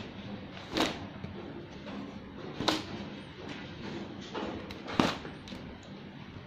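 Stiff embossed PVC wallpaper sample pages being flipped over in a large sample book: three sharp page-turn flaps, about two seconds apart, with softer rustles between them.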